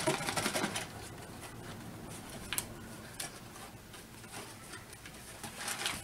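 A cardboard Happy Meal box being shaken for under a second, then faint rustling with a few small clicks as its flaps are pried open.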